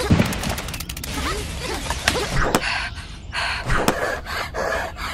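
Cartoon vocal effects for a toy figure working a hoe: a few short, effortful grunts with sharp knocks of the hoe. From about three seconds in comes quick, rhythmic panting, the worker out of breath.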